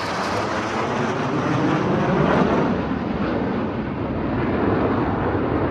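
Aircraft engine noise, loud and steady, its high end dying away after about three seconds as the aircraft moves off.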